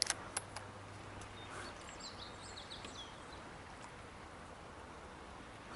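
Quiet outdoor ambience with faint bird calls, short high chirps about two to three seconds in. A few small clicks come right at the start.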